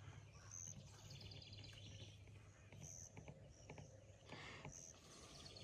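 Near silence with faint birds chirping: short high calls about a second apart, with a couple of brief trills, over a low steady hum.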